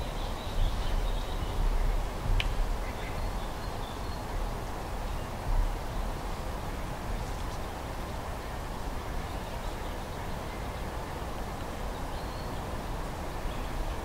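Outdoor woodland ambience: faint high bird calls in the first few seconds and again near the end, over a low uneven rumble.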